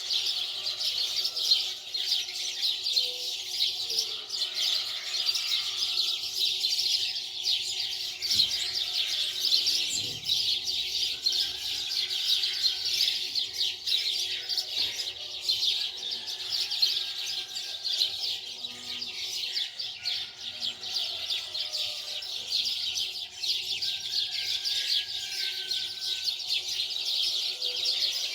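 Many small birds chirping and twittering without a break, a dense continuous chatter of quick high chirps.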